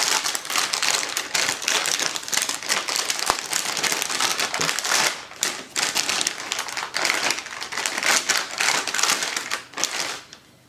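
Plastic bag crinkling continuously as a graphics card is handled in it and pulled out, stopping shortly before the end.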